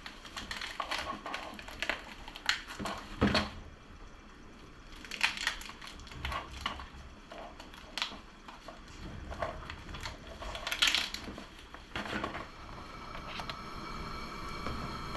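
Black plastic bag crinkling and crackling in irregular bursts as a mud crab is handled in it. A faint steady hum comes in near the end.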